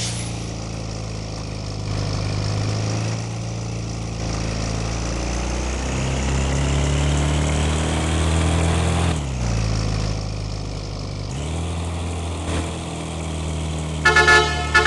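Bus engine running, its pitch climbing as it pulls away, dropping off about nine seconds in and then picking up again. Near the end a multi-tone telolet horn starts sounding a tune in short blasts.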